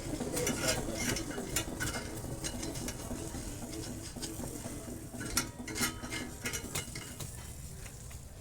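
Irregular light metallic clinks and taps: hand tools and metal parts knocking together during washing machine bearing repair work.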